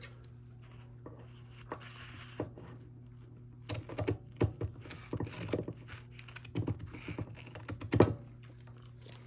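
Scattered light clicks and taps from handling seatbelt webbing and tools, with the busiest stretch in the second half, over a steady low hum.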